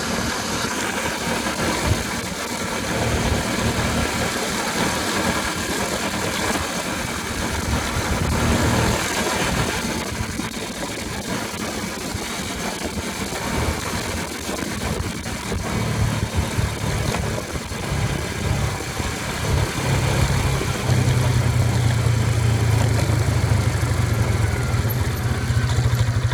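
ATV engine running, with broad road and mechanical noise; about 21 seconds in a steady low engine drone takes over and the sound gets louder.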